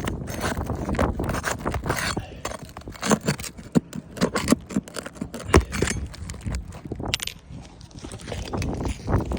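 Irregular scrapes, clicks and knocks of hand work on a roof as a shingle is pried loose and its fasteners pulled.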